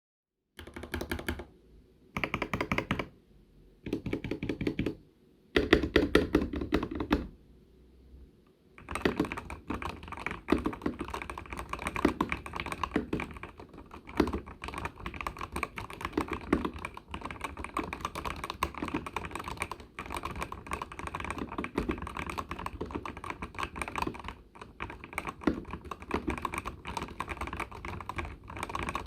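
Epomaker TH80 mechanical keyboard with Gateron Pro Black linear switches being typed on: four short runs of keystrokes separated by pauses, then steady fast typing from about nine seconds in.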